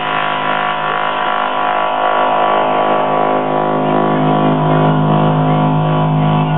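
Electronic dance music over a rave's sound system: a sustained synthesizer drone of several held tones with no beat, its low notes swelling from about four seconds in.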